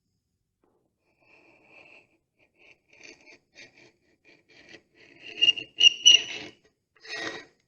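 Loose, powdery filler being scraped off the edge of an MDF repair in short, irregular strokes, loudest a little after the middle and once more near the end. The filler scrapes away easily because it never bonded to the MDF.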